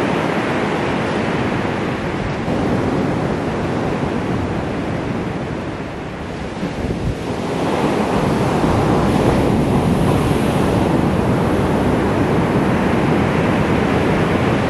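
Ocean surf breaking and washing up a sand beach in a steady rush, dipping briefly about halfway through and then growing louder as bigger waves break.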